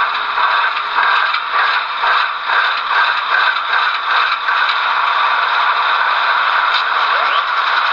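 Model GE Evolution Series diesel locomotive's DCC sound decoder playing the prime mover start-up and idle through its small onboard speaker: a thin, rattly engine sound with no deep bass.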